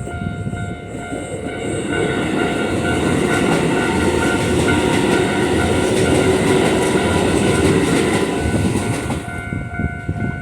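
A Keikyu Line train passing over a level crossing, wheels clacking over the rail joints, loudest in the middle and easing off near the end. The crossing's alarm bell rings over it and cuts off at the very end.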